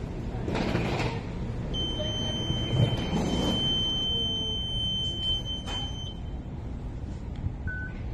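Nol card ticket vending machine giving one long, steady, high-pitched beep of about four seconds as the top-up transaction succeeds and the card is to be taken. A short, lower beep follows near the end as the card is held to a 'Tag here' card reader, over a steady low background rumble.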